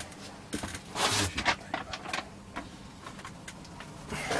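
Scattered light clicks and a brief rustle of hands working at the bench, ending with a louder clatter just before the end as a key is pressed on the Commodore C16's keyboard.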